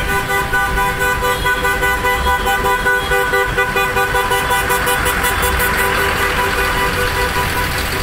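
A vehicle horn held in one long, steady blast over the low running of farm tractor engines passing slowly.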